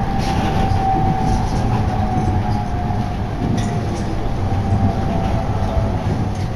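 Interior running noise of a moving electric commuter train: a steady rumble of wheels on rails with a faint wavering whine and a few light clicks.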